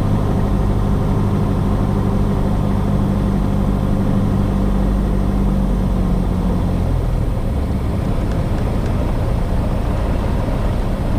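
Cockpit noise of a Cessna 172S on final approach: the four-cylinder Lycoming engine and propeller drone steadily, and the engine's low hum shifts and eases slightly about seven seconds in.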